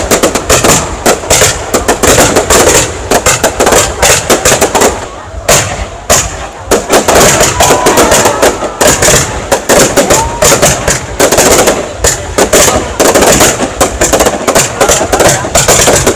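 Aerial fireworks display in a dense, continuous barrage: shells bursting in rapid succession, many loud bangs a second with hardly a gap.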